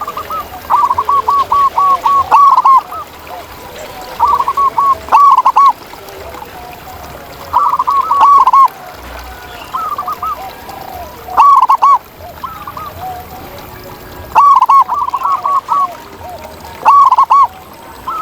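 Zebra doves cooing: bursts of rapid, bubbling notes repeated every few seconds, with fainter calls in between.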